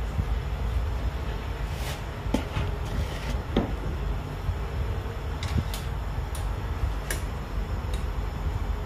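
Scattered light clicks and knocks of kitchen work, about eight at uneven intervals, over a steady low hum.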